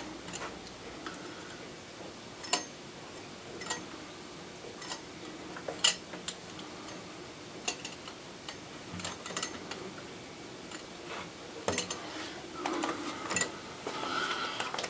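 Light clicks and taps of small hard objects, irregular, about one every second or two, over a quiet room background.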